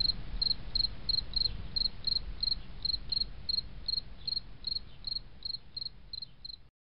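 Cricket chirping: short high chirps repeating evenly, about three a second, over a low steady rumble, cutting off suddenly near the end.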